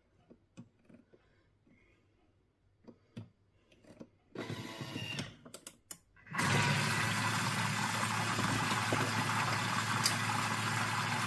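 Light taps on a touchscreen and small clicks, a brief mechanical whirr with clicks about four and a half seconds in, then a Thermomix mixer starts and runs steadily at speed 4, blending a liquid mix of eggs, milk and sugar.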